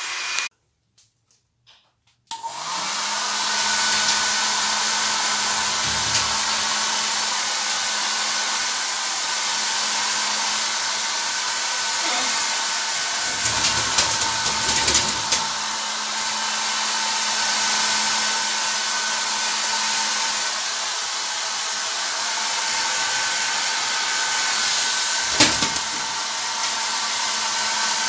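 Electric hair dryer switched on about two seconds in and then blowing steadily, a rushing air noise with a steady motor whine. A few low thumps come through around the middle and near the end.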